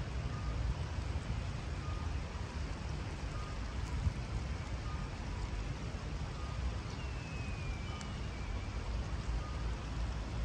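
Riverside ambience: a steady low rumble under an even wash of flowing shallow river water, with a faint distant beeper sounding about every three-quarters of a second, like a vehicle's reversing alarm. A brief falling high call cuts through about seven seconds in.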